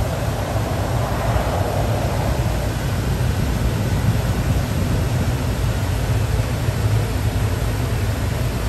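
Automatic gantry car wash's air-dryer blowers running steadily, a constant rushing noise with a deep hum underneath.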